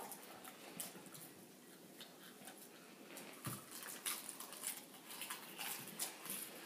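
Quiet crunching and munching of popcorn being chewed: a run of short, crisp crackles, thicker in the second half.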